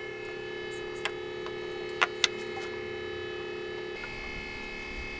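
A steady electrical hum drones throughout and changes pitch about four seconds in. Over it come three short, sharp clicks, around one and two seconds in, of a T-handle driver working the screws of the outboard lower unit's screens.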